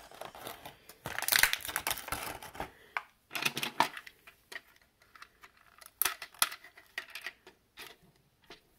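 Small plastic model parts being handled: a clear plastic parts tray crinkles and rustles for a second or two, then come scattered sharp clicks as the small plastic propellers are pressed onto the engine nacelles of a snap-together model B-17.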